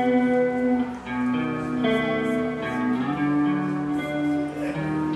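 Guitar music: sustained plucked notes and chords, each held about a second before changing to the next.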